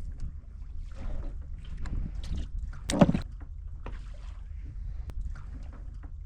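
Steady low rumble aboard a fishing boat at sea, with scattered knocks and a loud thump about three seconds in.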